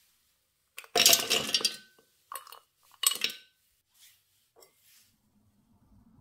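Kitchen dishes and utensils clattering: a loud clatter about a second in, then two shorter clinks and a few faint knocks.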